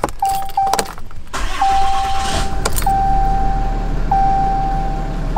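Keys click in the ignition, then the 2017 Ram 3500's 6.7 L Cummins turbo-diesel cranks for about a second and a half, catches, and settles into a steady idle; the owner judges it to sound fine after a fresh oil and filter change. A cab warning chime dings over it about every second and a quarter.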